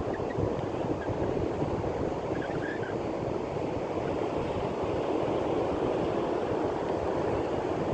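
Ocean surf breaking and washing on the beach, a steady rushing, mixed with wind buffeting the microphone.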